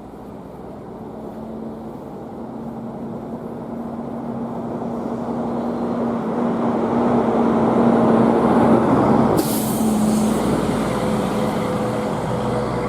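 A heavy vehicle's engine running and growing steadily louder, with a sudden sharp hiss of air about nine and a half seconds in.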